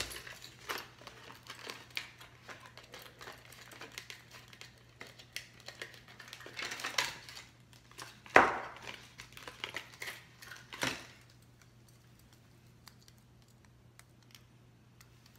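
A lure's packaging being opened by hand: crinkling and rustling with many small clicks, and one sharp snap about eight seconds in. The handling stops about eleven seconds in, leaving a low steady hum.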